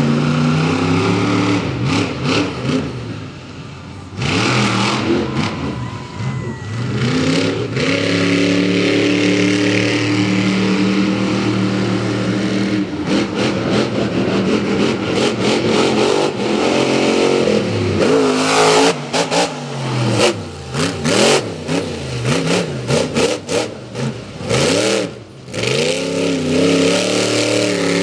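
Monster truck engine revving hard and dropping back again and again as the truck drives around the dirt track, with a run of sharp cracks and knocks about two-thirds of the way through.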